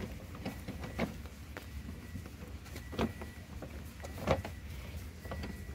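Plastic inner door trim panel of a Toyota Corolla being pressed back into place by hand. It gives several sharp plastic knocks and clicks, the loudest about four seconds in, over a steady low hum.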